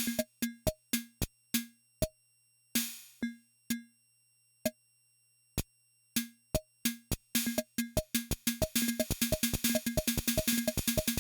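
Yamaha Portasound PS-2's built-in Latin rhythm, simple electronic drum sounds, playing while its tempo knob is swept. The beat slows to a few sparse hits around the middle, then speeds up until the hits come in a rapid rattle near the end.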